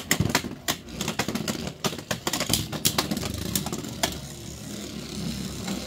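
Two Beyblade X spinning tops, Lightning L-Drago and Wizardarrow, whirring in a plastic stadium and clattering against each other and the stadium wall in a run of sharp clicks and knocks. The hits grow sparser about four seconds in, leaving mostly the whir of the spinning tops.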